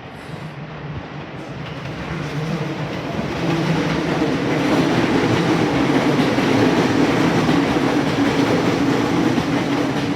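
Electric commuter train running past the platform. Its noise builds over the first few seconds, then holds steady and loud.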